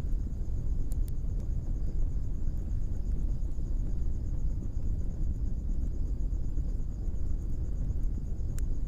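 Blacksmith's coal forge fire burning with a steady low rush, with a few sharp crackles from the coals. A steady high pulsing chirr runs over it throughout.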